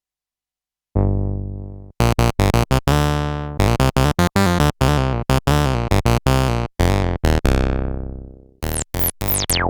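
Behringer MS-1 analog monosynth playing, with no other instruments. About a second in, one note sounds and fades. Then comes a fast sequence of short, staccato notes, some left to ring out longer, and near the end quick notes with steeply falling pitch sweeps, like zaps.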